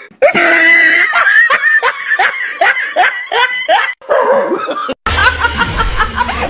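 A person laughing hard in quick repeated bursts, about three to four a second. About five seconds in it cuts to another laugh over a low hum.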